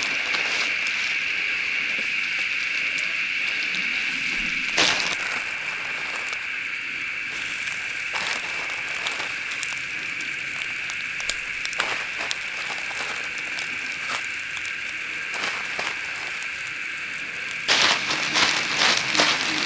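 Crumbed redfin (English perch) fillets frying in butter in a pan: a steady sizzle with scattered pops and crackles, turning louder and busier near the end.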